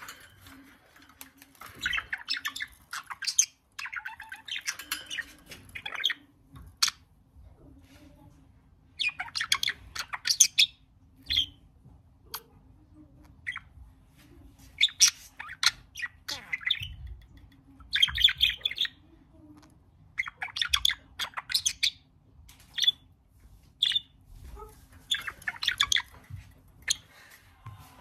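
Budgerigar chattering and chirping in short bursts of a second or two, again and again, with scattered sharp clicks between the bursts.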